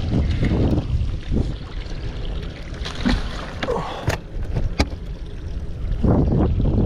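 Wind buffeting the microphone and water sloshing around a small fishing boat, with a few sharp knocks about three, four and five seconds in from handling the rod and reel. The noise grows louder about six seconds in, as the fish is swung aboard.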